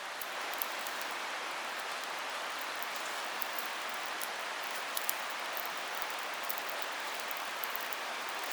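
Campfire of burning wood: a steady hiss with small crackles and pops scattered irregularly through it.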